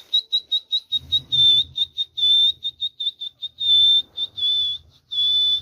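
High whistling on one unchanging pitch: a quick run of short whistle notes, about three a second, then a few longer held notes near the end.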